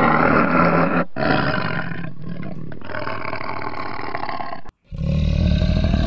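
Tiger roaring: a long, rough roar, loudest in its first second, with a short break about a second in, that cuts off suddenly near the end. After it comes a different low rumbling sound.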